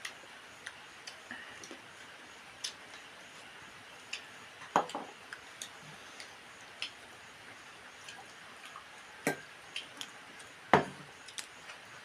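Eating sounds close to the microphone: irregular small clicks and smacks of chewing, with two louder knocks about five seconds and eleven seconds in.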